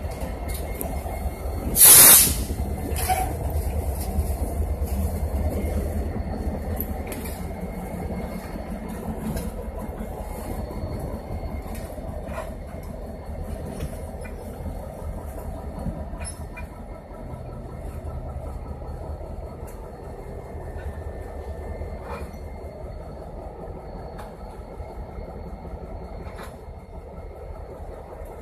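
Diesel locomotives rumbling steadily as they move slowly through the yard. About two seconds in comes one very loud, sharp burst of sound, and scattered clanks and a faint thin wheel squeal follow.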